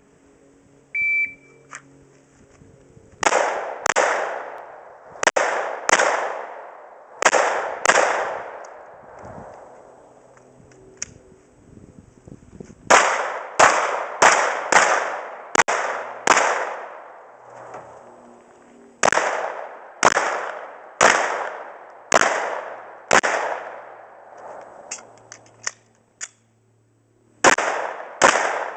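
A shot timer's start beep, then a handgun fired in strings of quick pairs, the shots about half a second apart with echoing tails and short pauses between strings.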